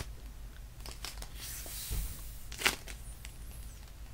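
Foam squishy donut coated in fabric paint being squeezed by hand, the paint crackling and crinkling as it flexes, with a sharper crackle about two and a half seconds in.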